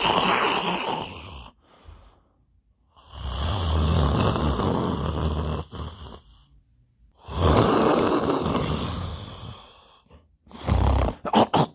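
A person snoring, exaggeratedly loud: three long snores a second or so apart, the middle one the longest. Near the end come several short, choppy bursts.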